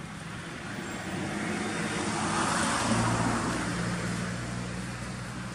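A motor vehicle passing by: its noise swells to a peak midway and fades again, with a steady low engine hum under it.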